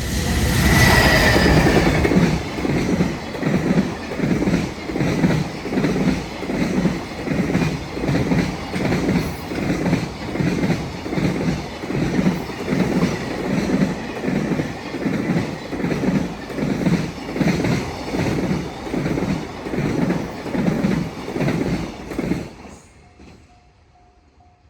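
JR Freight freight train hauled by an EF210 electric locomotive passing close by. The locomotive goes by loudest in the first two seconds, then the long string of freight wagons follows with a steady rhythmic clickety-clack of wheels over rail joints, about once a second. The sound cuts off abruptly as the last wagon clears, about 22 seconds in.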